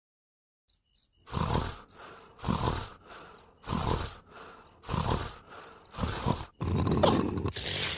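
Cartoon snoring: a loud rasping snore a little more than once a second, with a softer breath between, over a background of crickets chirping about twice a second.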